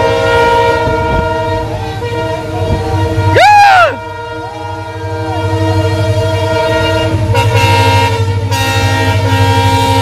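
Approaching train sounding its horn in a long, steady blast over a low engine rumble. About three and a half seconds in comes the loudest sound, a person's whoop that rises and falls.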